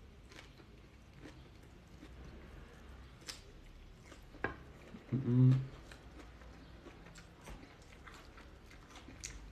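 A man quietly chewing a mouthful of bean salad, with a few sharp ticks of a metal fork against a wooden bowl. About five seconds in comes a short hum, the loudest sound.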